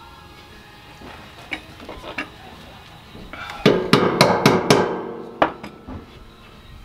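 Metal-on-metal knocks and clanks at a trailer's leaf-spring hanger and spring eye being worked on during a suspension rebuild. A couple of light clicks come first, then about halfway through a quick run of sharp, ringing knocks lasts about two seconds.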